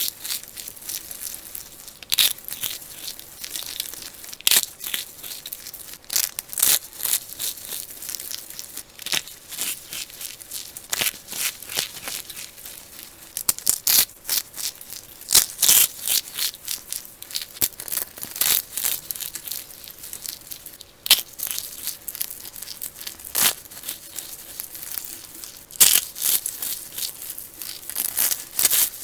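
Crisp crunching and crumbling of a dry, brittle block being cut and crushed, with sharp crunches every second or two and finer crackling between them.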